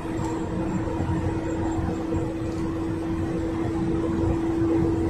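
A 2015 GAZelle Next minibus heard from inside the passenger cabin while driving at a steady speed: constant engine drone and road rumble, with a steady humming tone over it.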